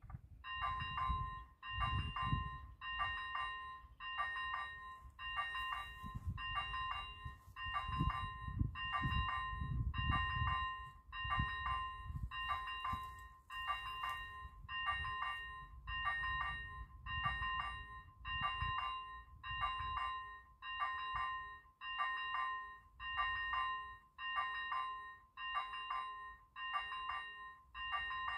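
Electronic warning bell of an AŽD 97 level crossing ringing in a steady repeating pattern, about one ring a second, the signal that the crossing has activated for an approaching train. A low irregular rumble runs underneath.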